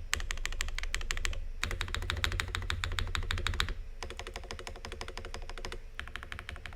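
Fast, continuous typing on a Cycle7 mechanical keyboard with factory-lubed Keygeek Little Ghost linear switches: a rapid stream of key clacks, broken by brief pauses about a second and a half, four and six seconds in, and a little softer in the second half.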